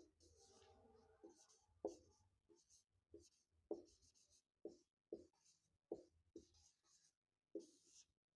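Faint sounds of writing by hand: about ten short, separate scratching strokes at irregular gaps.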